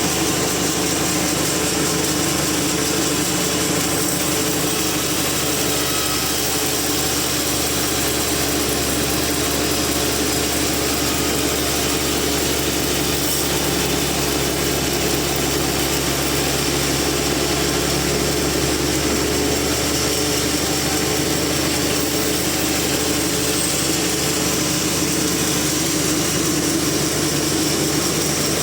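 A sawmill machine running steadily: a constant engine drone with a hiss on top.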